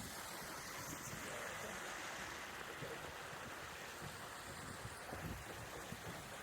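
Steady rush of water from Chilnualna Creek pouring over the top of Chilnualna Falls, an even, fairly soft hiss.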